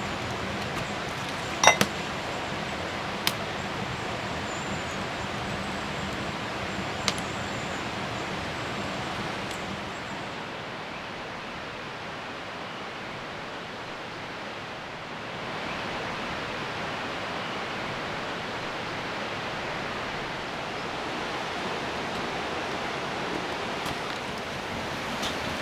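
Steady hiss of rain falling, with a few sharp clicks in the first several seconds.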